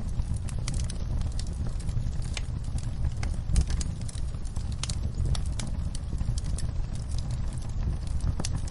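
Log fire burning in a fireplace: a steady low rumble of flame with irregular sharp crackles and pops from the burning wood, one louder pop about three and a half seconds in.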